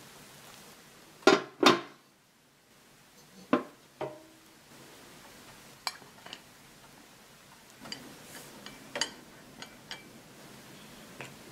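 Knocks and clinks of a stainless-steel pancake ring mould against a hotplate and a ceramic plate: two loud knocks about a second in, two more a couple of seconds later, the second with a short ring. After that come lighter scattered taps and scrapes as a thin stick works around the inside of the metal ring.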